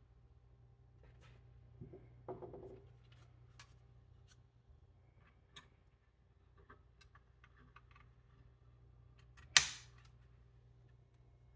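Scattered small clicks and taps of hands handling a Lenovo ThinkCentre M73 Tiny mini PC and its parts during an SSD and RAM swap, with a short rattle about two seconds in and one sharp, loud click near the end.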